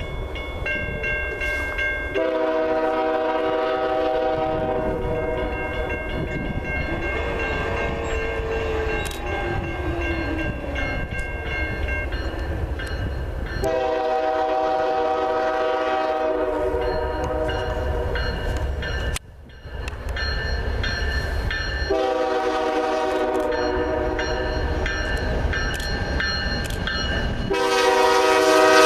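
Diesel freight locomotive's multi-chime air horn sounding for a grade crossing in the long-long-short-long pattern: two long blasts, a shorter one, then a final long blast that gets louder as the train closes in. A low wind rumble sits under it.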